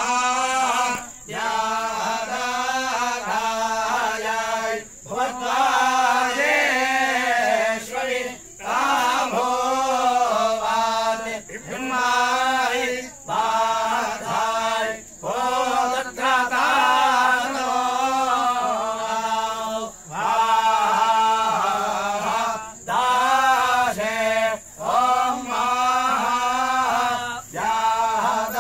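Group of male priests chanting Vedic mantras together in a steady, near-monotone recitation, the phrases broken by short pauses every few seconds.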